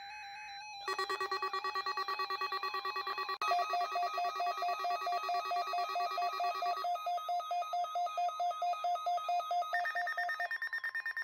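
Weather radio receivers' alarms going off for the weekly test of the NOAA Weather Radio warning alarm tone. From about a second in there are rapid pulsing electronic beeps in several pitches with a warbling tone over them, and the mix of beeps changes about every three seconds.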